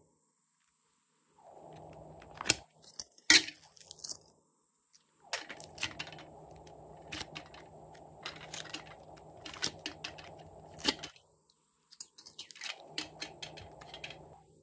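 Thin clear plastic mold crackling and clicking as soft jelly shapes are pressed out of it, with two sharp, loud snaps a few seconds in and stretches of dull rustling between the clicks.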